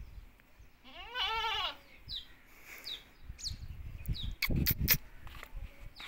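A single wavering bleat lasting under a second, about a second in, then a few short high chirps. Near the end comes a quick cluster of sharp knocks, the loudest sounds.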